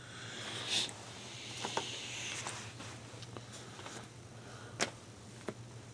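Comic books being handled and shuffled: a rustling with several sharp clicks and taps, the loudest about a second in and again near the end.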